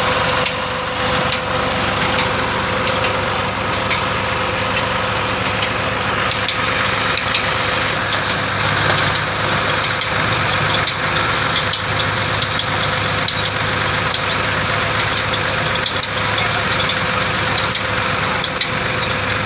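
Diesel tractor engine running steadily at constant speed.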